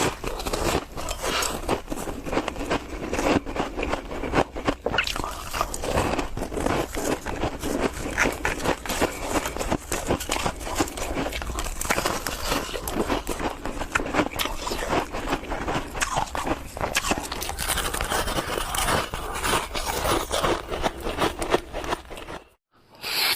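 Close-miked crunching and chewing of ice, a dense run of sharp crunches and crackles that breaks off briefly near the end.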